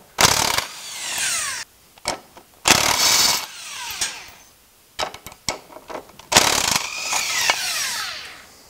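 Impact wrench spinning a 19 mm rear engine mount bolt loose, in three bursts, each whine falling in pitch as the tool spins down. A few light clicks come between the second and third bursts.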